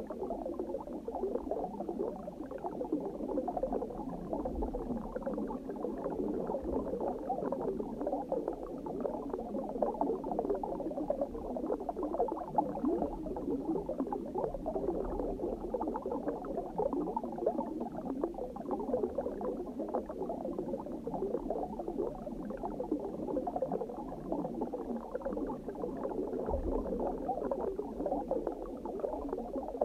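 Underwater bubbling: a steady, dense burble of bubbles, dull and muffled with no bright top, with a few faint low thumps beneath.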